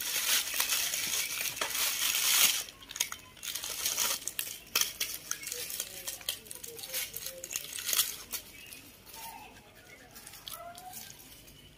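Clear plastic bag and snack wrappers crinkling and rustling as baby monkeys rummage through them. It is densest for the first couple of seconds, then comes in scattered crackles, and dies down near the end.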